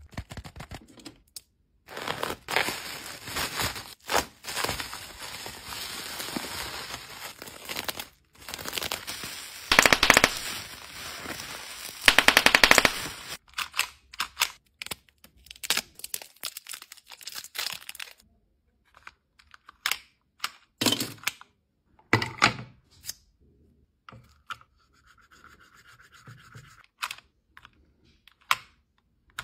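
Plastic mailer bag crinkling and being torn open, loudest in a rapid ripping run about twelve seconds in. Then scattered separate clicks and taps of hands handling a hard plastic toy.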